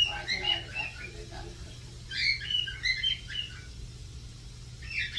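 A bird chirping in three short bursts of quick, high notes that slide up and down, over a steady low hum.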